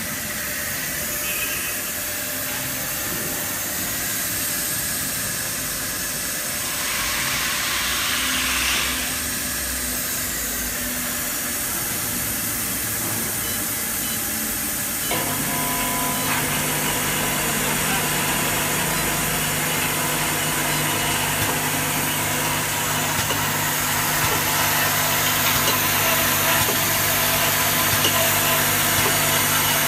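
Steady hiss of compressed air at the pneumatic filter-regulator of an eye drop filling and capping machine. About halfway through, the machine's motors start, adding a steady hum of several tones that keeps running.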